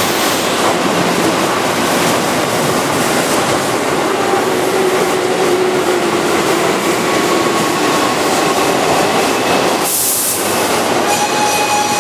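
Keihan electric commuter train at a station platform, a steady rumble throughout. A short hiss comes about ten seconds in, and a moving train's pitched whine rises near the end.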